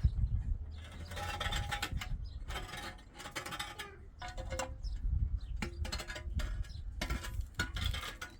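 Rough scraping strokes, each about a second long, repeated every second or two, over a steady low rumble.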